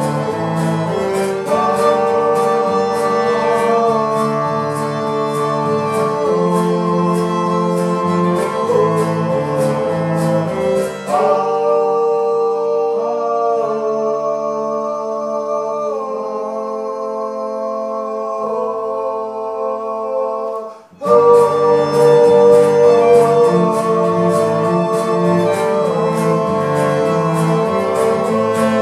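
Acoustic string band playing live: strummed acoustic guitars, fiddle, bass and sung vocals. About 11 seconds in the strumming drops out for a quieter passage of held notes, and the full band comes back in louder about 21 seconds in.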